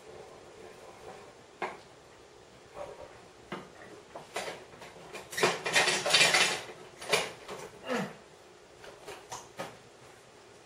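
Pots, pans and utensils clinking and knocking while cooking, in scattered separate knocks with a denser clatter of about a second just past the middle.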